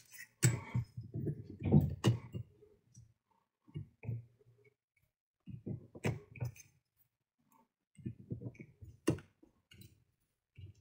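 Hands handling a small circuit board and clipping alligator-clip test leads onto it: scattered clicks and rustles, with sharp clicks at about 2, 6 and 9 seconds.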